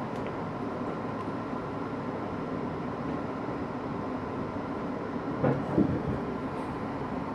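R62A subway train running on elevated track, heard from inside the lead car: steady rolling noise of wheels on rail, with two louder clunks close together about five and a half seconds in.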